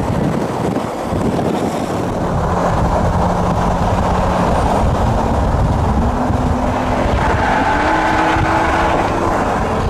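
Pagani Huayra's twin-turbo V12 running at highway speed alongside the camera car, under steady road and wind noise; about two thirds of the way through, the engine note climbs in pitch in a couple of steps.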